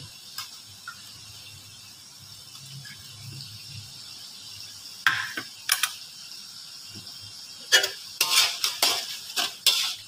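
Metal utensils scraping and clinking in a metal wok as tomato puree is spooned in and stirred into frying tomatoes, over a faint steady sizzle. Two sharp clicks come about halfway through, and a run of scraping strokes fills the last two seconds.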